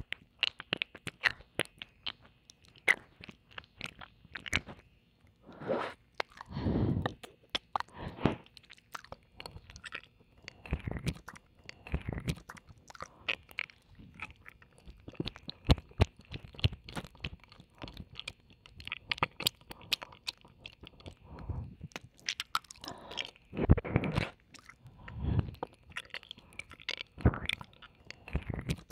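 Wet mouth sounds in the right ear: ear licking, kissing and tongue clicks, close to the microphone. Many quick sharp clicks, with a few longer slurping licks.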